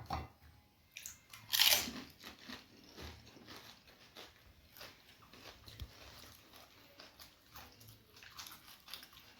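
Close-up biting and chewing of fuchka (panipuri): the crisp fried shells, filled with water and spiced mashed potato, crunching between the teeth and then being chewed wetly. A louder crunch comes about a second and a half in, followed by many small irregular crackles of chewing.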